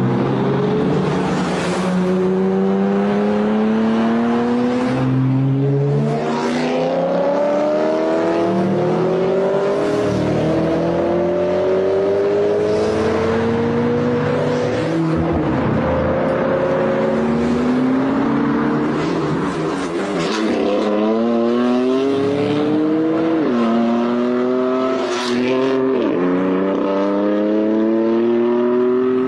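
BMW car engines accelerating hard from a standstill, revving up through the gears. The pitch climbs in long rising sweeps and drops back sharply at each upshift, several times over.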